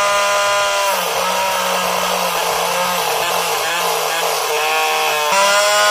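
Small 12 V DC motor of a homemade mini table saw spinning its blade with a steady whine. About a second in, the pitch drops and roughens as the blade cuts through a thin PVC sheet. It climbs back to the free-running pitch near the end, when the cut is through.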